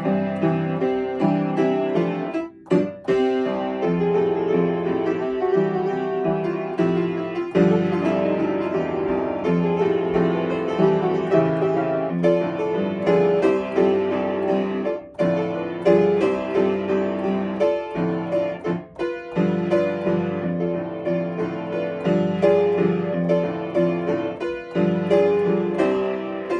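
Solo piano played at a lively pace with dense, steady notes, broken by a few short pauses, the first about two and a half seconds in.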